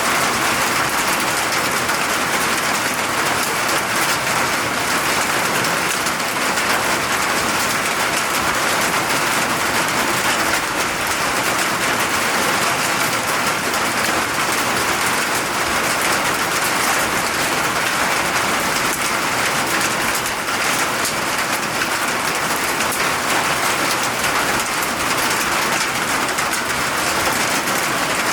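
Steady rainfall, a dense even hiss of drops hitting a surface, with no let-up.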